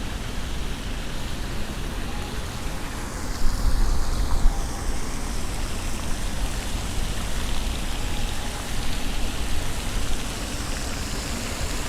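Water of a public fountain splashing steadily, with a low rumble underneath.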